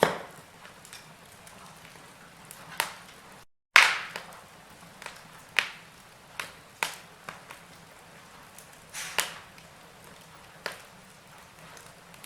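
Wood fire burning in a fireplace: a soft steady hiss with irregular sharp pops and crackles from the burning logs, about a dozen in all. The sound drops out completely for a moment a little after three seconds in, then comes back with one of the loudest pops.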